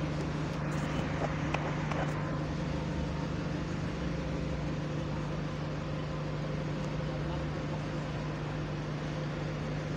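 Single-deck bus engine idling steadily at a stop: a constant low hum with a moany tone. A few faint clicks sound in the first couple of seconds.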